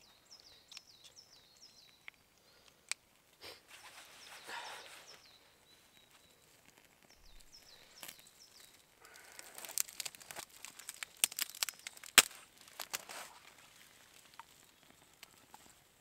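Small songbirds singing short descending phrases, with a dense run of sharp crackles and snaps from about nine seconds in, the loudest a little after twelve seconds, as a kindling fire of pine shavings is being built.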